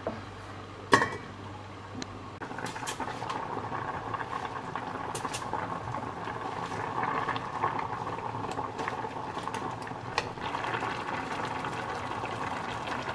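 Pot of chicken and vegetable broth boiling on the stove, a steady crackly bubbling that starts about two and a half seconds in. A single sharp click about a second in.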